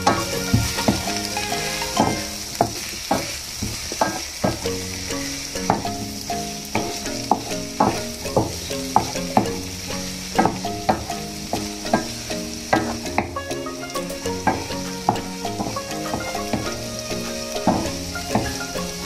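Wooden spoon stirring diced potatoes and onion in a nonstick frying pan: frequent irregular scrapes and knocks of the spoon and food against the pan over a steady sizzle of the potatoes frying gently over low heat.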